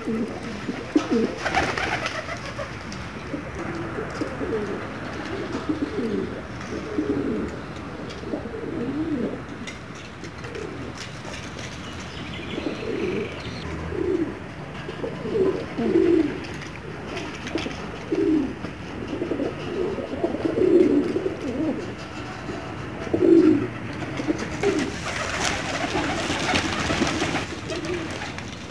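Several pigeons cooing over and over, low and throaty, with calls overlapping. Near the end a louder rush of noise comes in for a few seconds.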